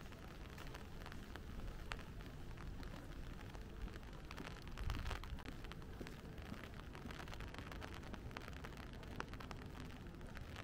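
Rain falling on a city street, with many scattered drops ticking sharply close by. A brief low rumble swells about five seconds in.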